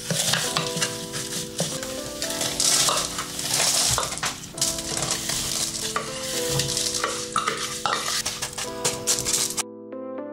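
Metal spoon scraping and scooping a crumbly biscuit mixture out of a plastic food-processor bowl and spreading it in a paper-lined cake tin: gritty scrapes and crumb rustles, with soft background music with held notes underneath. The scraping stops abruptly near the end.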